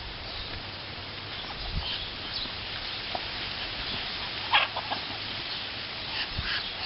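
Domestic fowl calling: a few short calls about four and a half seconds in and a run of short, evenly spaced calls near the end.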